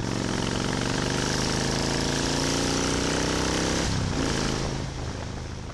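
Motorcycle engine pulling under acceleration, its pitch rising steadily, then a break about four seconds in like a gear change, after which it fades away.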